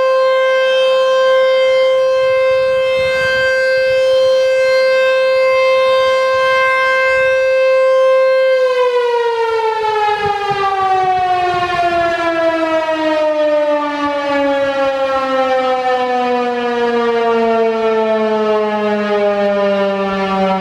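American Signal T-128 outdoor warning siren sounding a steady alert tone. About eight seconds in it starts to wind down, its pitch falling smoothly and steadily as the rotor slows: the alert signal is ending.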